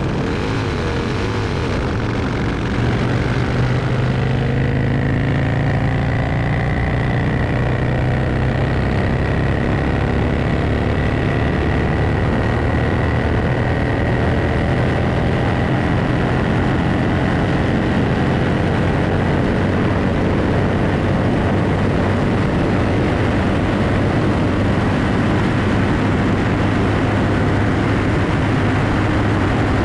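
Nitro-burning 1000cc Vincent V-twin engine running flat out at top speed, about 165–168 mph, with heavy wind rush over the bike-mounted camera. It gets louder about three seconds in, and its note then climbs slowly as the bike keeps accelerating.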